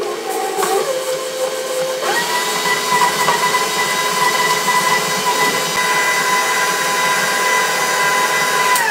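KitchenAid Professional HD stand mixer running with its flat paddle, creaming butter and sugar: a steady motor whine that steps up to a higher speed about two seconds in and winds down right at the end as it is switched off.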